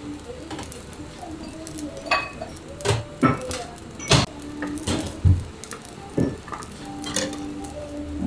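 Restaurant kitchen clatter: metal pans and utensils knocking and clinking, several sharp knocks spread through, the loudest about four seconds in.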